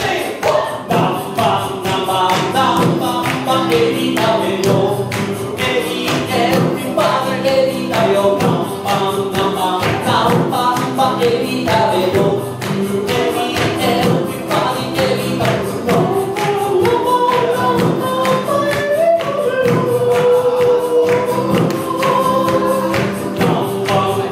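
A live song: a singer's voice over an acoustic guitar strummed in a steady rhythm.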